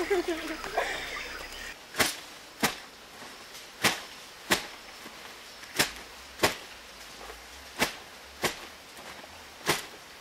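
Wet laundry being slapped against a flat stone during hand-washing: pairs of sharp slaps about half a second apart, repeating every two seconds or so, starting about two seconds in.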